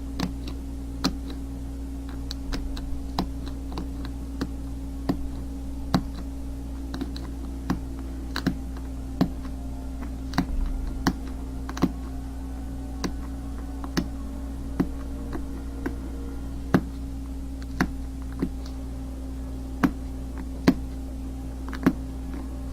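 Pressure flaking a flint flake into saw teeth: sharp stone clicks as small flakes snap off under the pressing tool, roughly one a second at an uneven pace, over a steady low hum.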